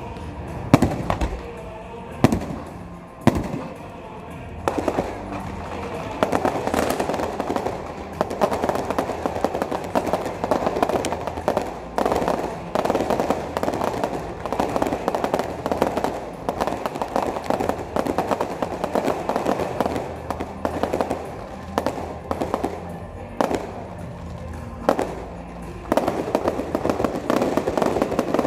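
Aerial fireworks exploding: a few separate loud bangs in the first seconds, then a dense, continuous run of crackling bursts. Music plays underneath.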